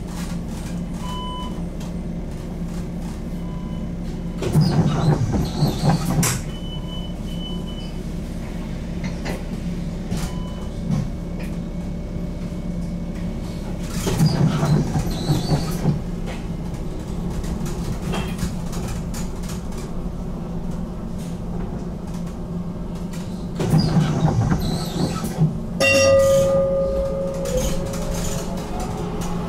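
Electric BN GTL8 tram's steady hum, with a few short high beeps early on and three louder rushes of noise about ten seconds apart. Near the end the tram pulls away and its traction motors give a steadily rising whine.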